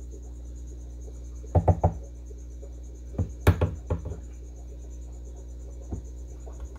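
Several sharp knocks and clacks in two short clusters, three together about a second and a half in and a handful more around three and a half seconds in, over a steady low hum and a constant high, evenly pulsing chirp like crickets.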